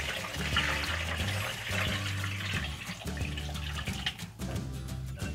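Lemonade pouring in a steady stream from a glass bowl through a fine mesh strainer into a plastic bowl, splashing. Near the end, the wet pulp of blended frozen orange and lemon slides out into the strainer.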